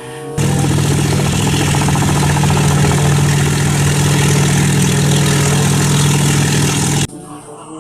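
A battery-powered toy vehicle's engine sound: a loud, steady buzzing hum with a hiss over it, switching on abruptly and cutting off suddenly about seven seconds in.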